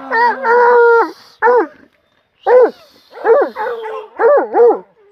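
Hunting hound baying and whining at a paca's burrow, worked up over the quarry it has cornered: one long held cry, then after a short pause a run of short yelps that rise and fall in pitch.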